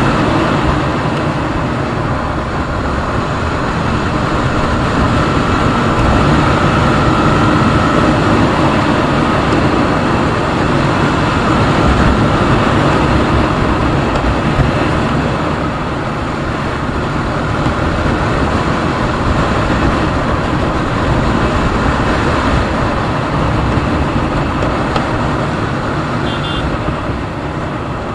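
Motorcycle engine running steadily while riding, mixed with road and wind noise.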